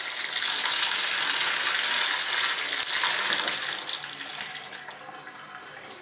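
Tap water running into a stainless steel sink, pouring over a colander of ceramic tumbling media and brass cartridge cases as a hand stirs them. The flow eases off about four seconds in, leaving a few light clinks from the cases and media.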